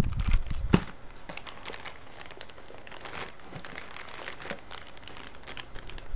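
Plastic parts bags crinkling as model kit pieces are handled, with a few knocks in the first second and then scattered light crackles.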